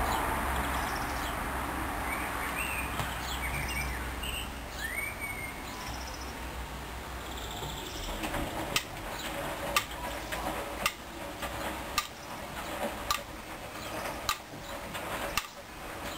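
Hoover Dyn10124Dp front-loading washing machine in its rinse cycle, water sloshing as the drum turns the load of jackets. From about halfway through come sharp knocks roughly once a second as the tumbling load strikes the drum.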